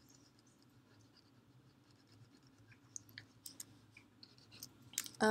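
Low steady room hum with scattered faint clicks and light scratches starting a couple of seconds in, and one sharper click near the end: someone clicking and stroking with a computer pointing device while working in a painting program.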